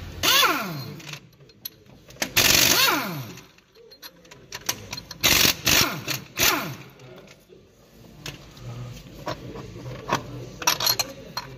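Impact wrench undoing the three crankshaft pulley bolts: three loud bursts, each winding down in pitch as the tool spins down. Then light clicks of bolts and tools being handled.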